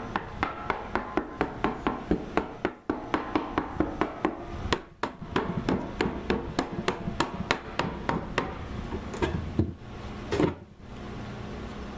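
Steel hammer rapidly tapping on an oak wine barrel's head, about three light strikes a second, to knock the head loose so it can be removed. Near the end the taps stop, and a couple of louder wooden knocks come as the freed head is lifted out of the barrel.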